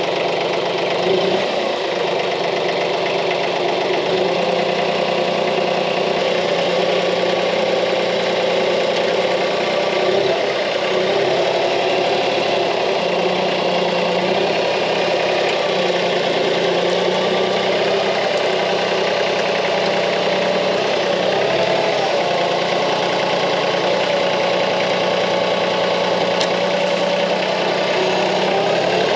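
Branson 2515H compact tractor's diesel engine running steadily under hydraulic load, its note rising and dipping slightly again and again as the front-loader bucket works to shake dirt off a pulled-up tree's root ball.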